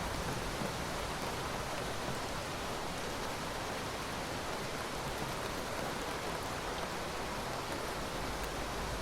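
Steady rain falling, an even hiss without breaks and no thunder.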